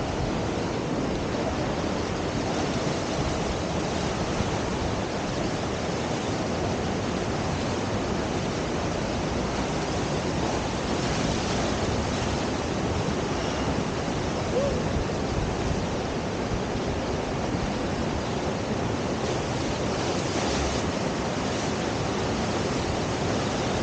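River water rushing steadily through a standing surf wave.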